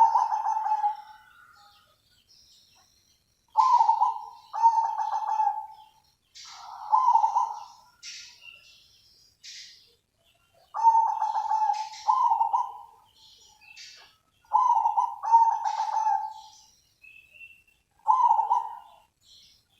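Zebra dove (perkutut) cooing: a series of short, rolling coo phrases, often in pairs, with pauses of one to three seconds between them.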